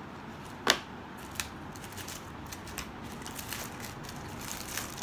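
Tissue paper and a small gift box being handled: scattered crinkles and light clicks, with one sharp tap a little under a second in.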